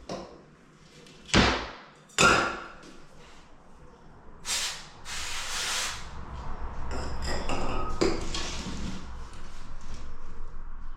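Two sharp knocks about a second apart as a timber architrave is fastened to the door casing, a lighter knock a couple of seconds later, then a longer stretch of handling and scraping noise.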